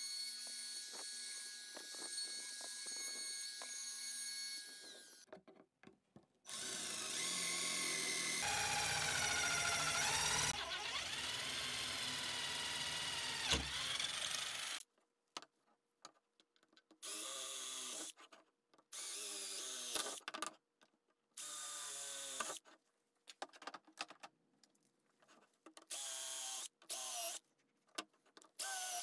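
A compact wood router runs steadily for about five seconds. Then an electric drill bores holes through the wood: first one long run of about eight seconds with its pitch wandering, then a string of short bursts, a second or so each, with the motor spinning up and down.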